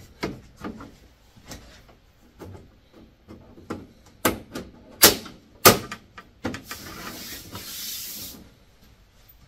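Clicks and knocks of a laser cutter's back cover panel being handled and snapped into place, with three sharp loud clicks between about four and six seconds in. A hissing rustle follows for about two seconds near the end.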